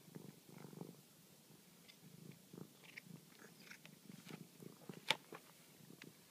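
Domestic cat purring low and unevenly close to the microphone while it mouths and chews a freshly caught mouse, with small wet clicks and crunches; a single sharp click about five seconds in is the loudest sound.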